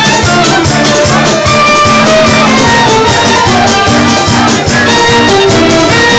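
Loud band music with a steady drum beat under held instrumental melody notes.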